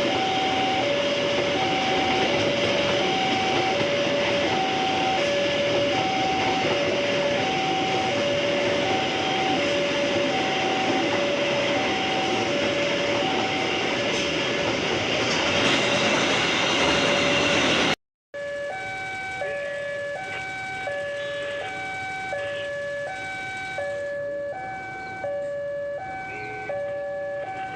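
Railway level-crossing warning alarm repeating an alternating two-note tone over the loud rumble of a passing train. After an abrupt cut near the end, the two-note alarm goes on more quietly, with higher alarm tones sounding alongside.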